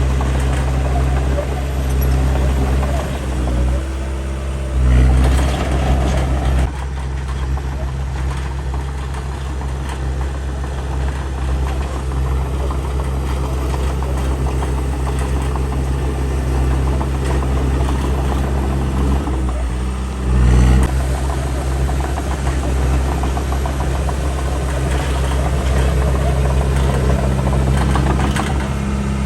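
Heavy diesel engine of earthmoving machinery running steadily with a low, even drone, briefly louder twice: about five and about twenty seconds in.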